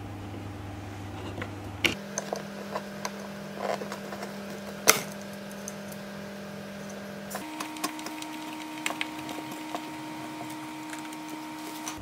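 Hand screwdriver driving small screws through a metal plate into a wooden drawer panel: scattered light clicks and creaks, with a sharper knock about five seconds in. Under it runs a steady low hum that shifts pitch twice.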